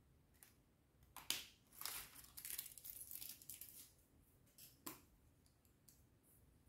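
Faint handling noise: kraft packing paper crinkling as metal lipstick tubes are set down and picked up among it, with a couple of light clicks.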